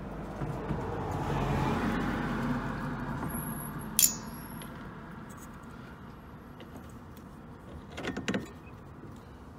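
Metal windshield wiper arm clinking and knocking as it is handled and set back onto its spindle: one sharp click about four seconds in and a short run of knocks near the end. Behind it, a passing vehicle swells and fades over the first few seconds.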